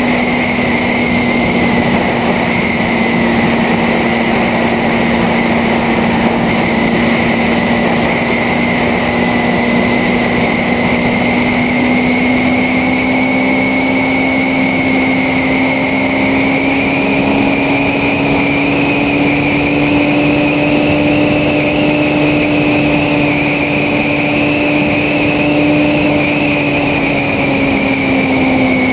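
Motorcycle engine running at a steady cruise under a rush of wind and road noise. Its note climbs gradually through the second half and falls back near the end.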